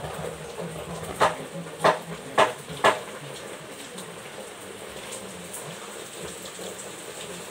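Four quick swishing strokes of a broom sweeping a dirt floor, about half a second apart, a little over a second in, over a steady low background.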